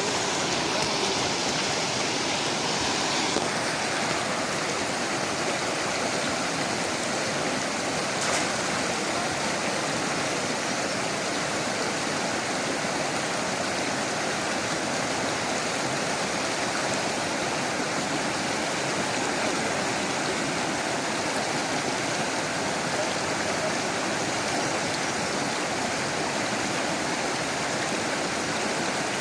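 Steady rushing of flowing water, with a single brief knock about eight seconds in.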